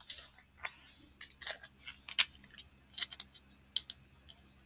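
Light clicks and taps of small jewellery being handled: earring backing cards and stud earrings picked up and fiddled with, an uneven scatter of sharp ticks with a short rustle at the start.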